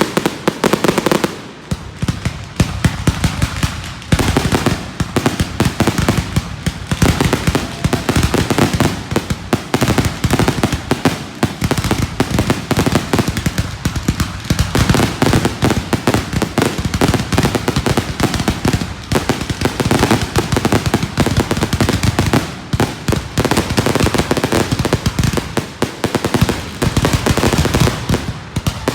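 Aerial fireworks display going off in a rapid, continuous barrage of bangs and crackles with no pause between them.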